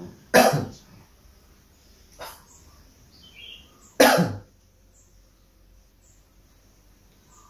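A person coughing: a loud cough about half a second in, a lighter one about two seconds in, and another loud cough about four seconds in.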